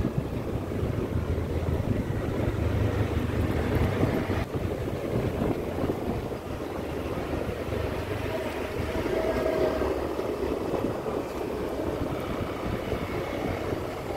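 Steady low rumble of a moving vehicle's engine and road noise, heard from on board while travelling along a road.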